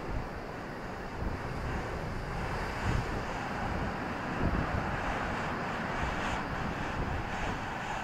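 Rough sea surf breaking and washing in over the shore in a steady rush, with wind buffeting the microphone.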